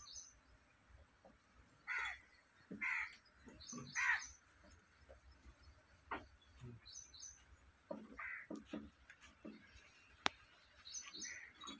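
A crow cawing: three caws about a second apart, then another a few seconds later, with a small bird repeating a short high three-note chirp in the background and a single sharp click near the end.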